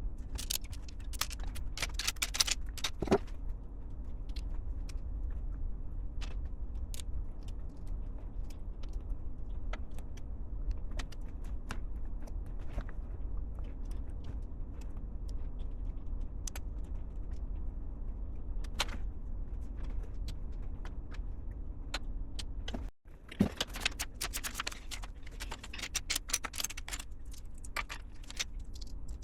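Small plastic LEGO pieces rattling and clicking as they are handled and snapped together, over a steady low hum. The clicking comes in a flurry near the start and a busier run of rattles and clicks in the last several seconds.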